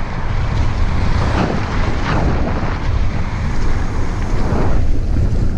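Heavy wind buffeting on the microphone of a camera carried on a fast run down a trail. The wind makes a steady low rumble, with scattered knocks and rattles on top.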